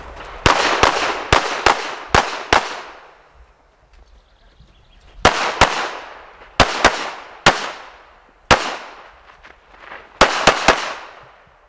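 Rapid pistol fire from a Smith & Wesson M&P9 Pro 9mm: about sixteen shots in three quick strings, often in fast pairs, each crack followed by a short ringing echo. There is a pause of about two and a half seconds between the first and second strings, and a shorter pause before the last string of four.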